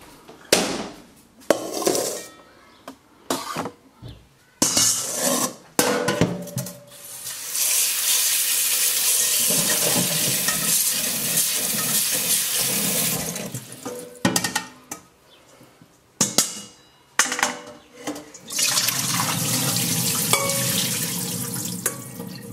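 Kitchen tap running steadily into a bowl of red currants as they are rinsed by hand, with knocks and clatters of the bowl being handled in the sink before and after. Near the end water runs and splashes again as the berries are tipped from the bowl into a stainless steel colander.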